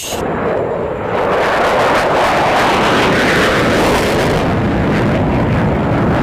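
F-16 fighter jet taking off on afterburner: a loud, steady jet roar that builds over the first second and then holds.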